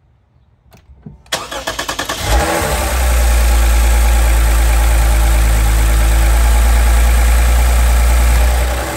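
Lexus IS 350's 3.5-litre V6 being started with its new aftermarket intake tube fitted. The starter cranks for about a second, the engine catches and flares, then runs at a loud raised idle that drops to a lower, quieter idle near the end.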